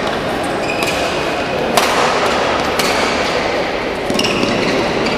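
Badminton rally: racquets striking the shuttlecock, several sharp hits about a second apart, over the steady background noise of a large hall.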